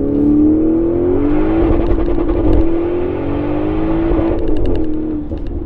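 Audi RS6 Avant Performance's twin-turbo V8 with an Akrapovic cat-back exhaust, heard from inside the cabin under hard acceleration. The engine note climbs in pitch through the first two seconds, then runs on steady with a rough, raspy edge. Near the end the note drops and a quick run of sharp clicks is heard.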